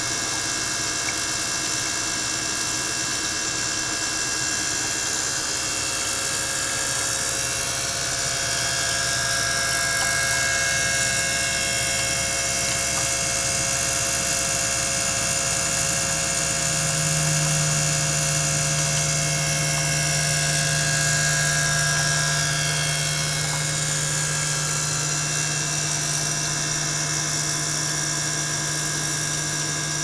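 Small electric liquid-circulation pump running steadily, a mechanical hum layered with several constant whining tones. About 17 seconds in, a low hum becomes noticeably louder.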